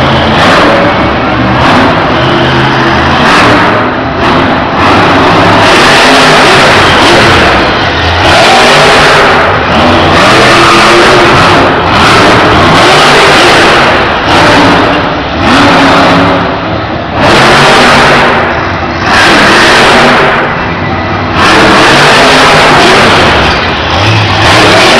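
Monster truck engines (supercharged V8s) revving hard, surging and easing off again every second or two, very loud.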